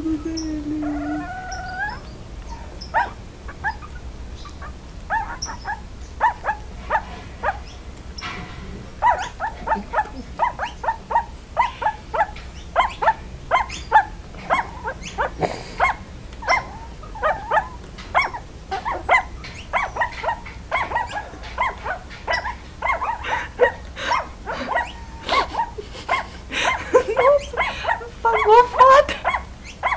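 A litter of young puppies whining and yipping: a brief held whine at the start, then a long run of short high squeaks, several a second, with a few longer rising and falling whines near the end.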